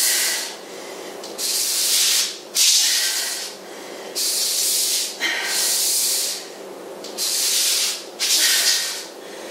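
Exercise sliders under the feet scraping across the floor as the legs are drawn in and pushed back out, about seven slides, each roughly a second long, in a steady rhythm.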